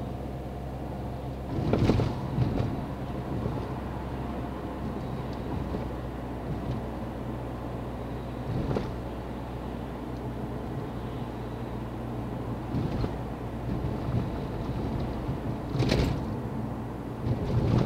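Car engine and road noise inside the cabin while driving, a steady low hum, broken by a few short knocks and rattles. The loudest knocks come about two seconds in and again near the end.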